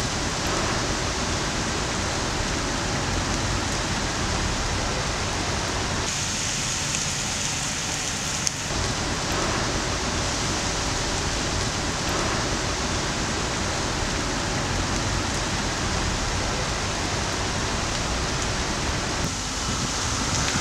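Steady rushing noise of a nor'easter storm, with wet snow and rain coming down. The tone changes abruptly about six, eight and a half and nineteen seconds in.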